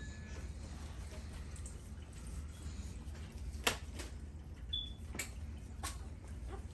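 Handling of a newborn puppy wrapped in a towel: a few sharp clicks and one short high squeak over a low steady hum.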